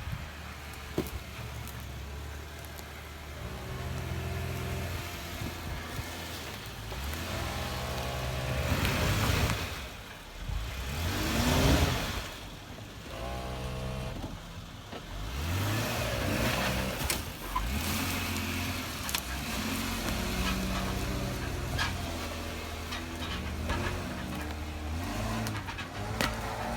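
A 4x4's engine running and revving up in bursts as it works its way over a rough trail obstacle. It is loudest twice a little before the middle.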